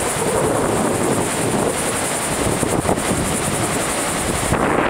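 Wind buffeting the microphone in uneven gusts over a steady rush of heavy surf, large storm swell from a distant hurricane breaking on the beach.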